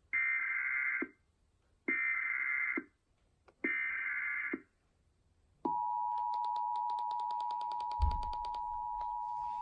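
Emergency Alert System header: three roughly one-second bursts of digital SAME data tones with short gaps between them, then the steady two-tone EAS attention signal starting about five and a half seconds in. A brief low thump comes near the end.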